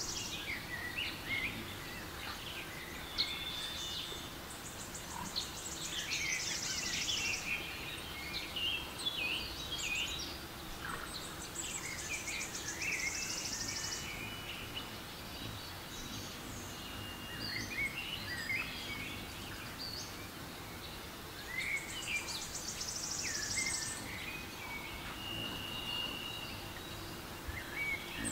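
Recorded nature soundscape of many birds chirping and calling over a steady forest background. A high pulsing buzz, like an insect's, comes and goes several times.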